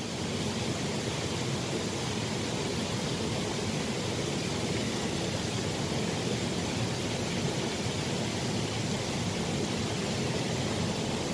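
Steady rushing of a small stream flowing over shallow riffles: an even, unbroken hiss with no separate splashes or knocks.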